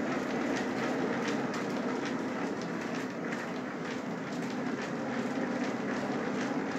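An old water mill's water-powered drive running: a steady rushing, rumbling noise of water and turning machinery, with light irregular clicks throughout.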